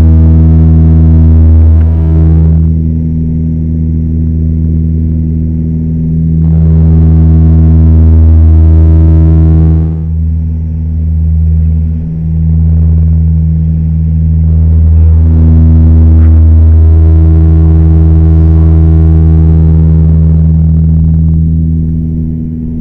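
Propeller airliner's engines and propellers heard in the cockpit on approach: a loud, steady low drone whose higher overtones swell and fade several times.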